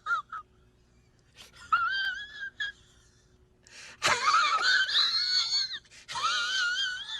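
High-pitched, wavering wailing cries, like a squeaky wheezing sob, in four bursts with short gaps; the longest and loudest comes about four seconds in. It is a meme sound effect.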